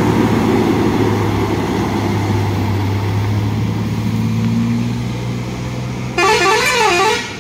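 Heavy multi-axle truck's diesel engine running under load as it pulls away uphill, its steady low hum fading as it moves off. About six seconds in, a warbling horn sounds for about a second.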